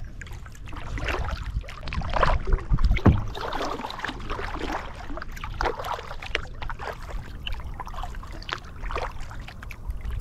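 Double-bladed kayak paddle dipping and pulling through calm water, with irregular splashes and trickling from the blades.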